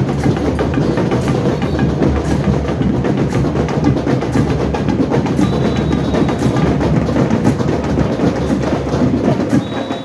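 Carnival parade band's percussion section playing loud, drum-led music on a steady beat, with deep drums under sharp clicking percussion strokes.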